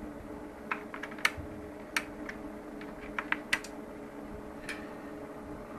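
About a dozen light, irregular clicks over a steady hum.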